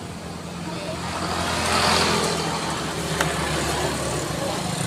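A motor vehicle passing close by: engine and road noise swell to a peak about two seconds in, then ease off into a steady low engine hum.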